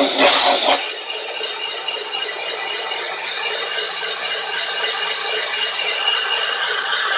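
Van Norman 777S boring bar running on automatic feed, its cutter boring a cylinder in a cast-iron 454 big-block Chevy block: a steady rattling, hissing cut with a faint steady whine. A louder burst of noise comes in the first second.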